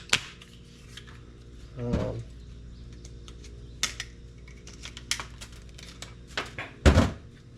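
Handling noise as a hammer is unpacked and moved about: scattered light clicks and ticks, a soft thump about two seconds in, and a louder thump near the end.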